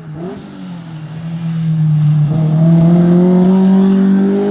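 Rally car engine pulling hard under acceleration as the car comes closer, its pitch climbing steadily through one gear and loudest about three seconds in.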